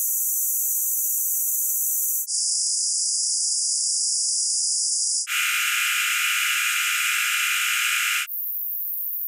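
Synthesized sonification of atomic emission spectra: each element's spectral lines played as a sum of sine waves lowered by ten octaves, giving a dense, steady, high-pitched tone that switches abruptly to a new one about every three seconds, from rhenium to osmium to iridium and, near the end, platinum. The iridium tone, about five seconds in, reaches lower than the others.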